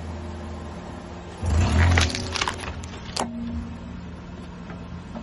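Car tyre rolling over a white foam block with pencils stuck in it: a loud crunch and crackle lasting about a second as the foam is crushed and the pencils knocked over, then a single sharp click. A car engine hums steadily underneath.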